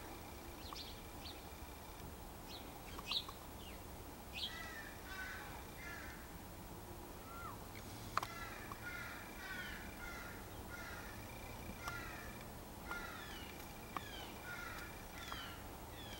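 A crow calling: many short, quick notes repeated in runs, with a few sharp clicks among them.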